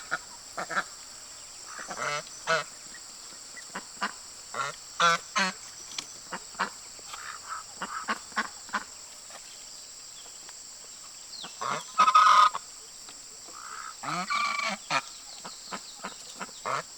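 Domestic waterfowl honking and calling repeatedly in short calls, with a louder, longer call about twelve seconds in, over a steady high-pitched hiss.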